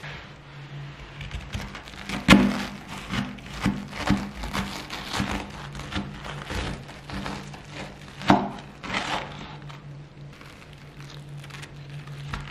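Kitchen work sounds: irregular knocks and taps of utensils, with two loud thuds about two and eight seconds in, over a steady low hum.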